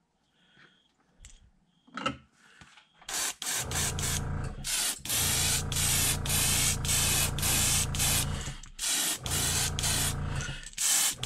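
Airbrush spraying acrylic paint onto a crankbait in short on-off spurts, with a few brief pauses. A few soft clicks of a helping-hands clamp being handled come first.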